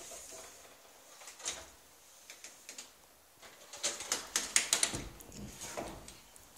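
A quick run of sharp clicks and taps about four seconds in, with a few scattered taps before and after.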